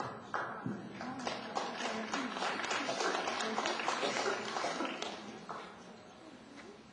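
Spectators clapping in applause, building up about a second in and dying away near the end, with voices among it.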